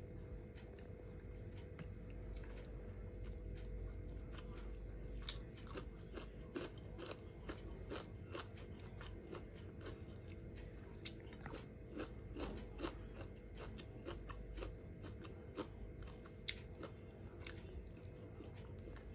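Close-miked chewing and biting of crunchy food, a run of sharp crunches that grows denser about five seconds in.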